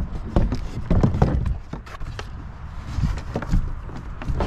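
Irregular knocks and clunks from a fishing kayak's frame seat as it is handled and lowered from its high to its low seating position.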